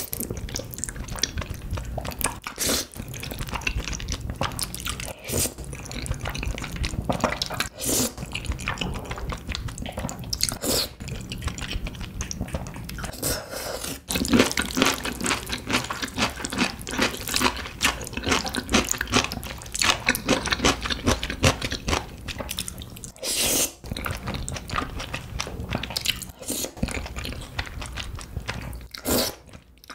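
Close-miked eating: slurping ramen noodles and chewy rice cakes coated in a creamy spicy rose sauce, with steady chewing and mouth smacks and several louder slurps.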